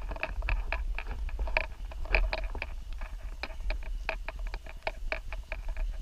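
Rapid, irregular light clicking with a faint metallic ring, about five clicks a second, from gear rattling in step with a hiker walking on a dirt trail, over a low rumble of wind and handling on the camera.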